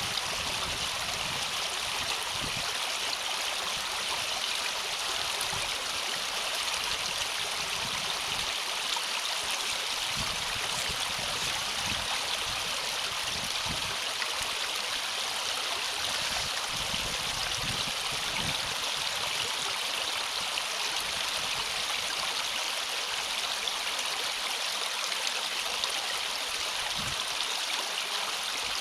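Water flowing steadily through a drainage ditch culvert, a continuous rush with scattered low thumps.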